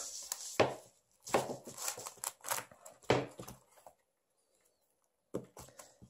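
Black electrical tape being pulled off its roll and wound around a broom's straw bundle and wooden handle, in several short bursts, stopping for about a second near the end.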